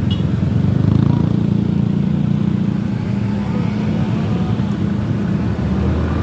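Large diesel bus engine running with a steady low rumble, a little louder about a second in.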